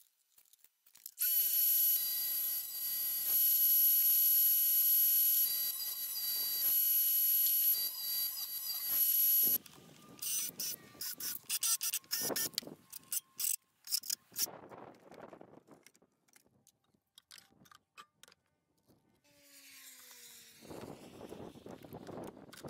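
Table saw running and cutting wood for about eight seconds, then cutting off. After it come a rapid run of short sharp clicks, then brief falling whines and bursts from a cordless drill driving screws into the wooden box.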